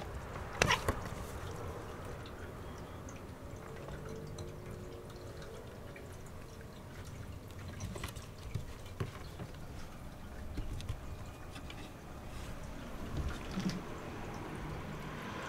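Light taps and scuffs of cats' paws on a wooden shelf in a quiet room, with a short low pitched sound about four seconds in.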